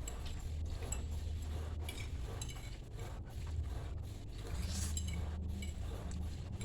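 Eating utensils clinking and scraping against a bowl or plate in scattered light clicks, over a steady low hum.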